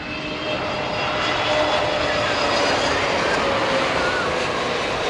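Jet airliner passing low overhead on its approach to land: a dense engine noise that swells over the first second or so and then holds loud, with a whining tone that slowly falls in pitch as it goes by.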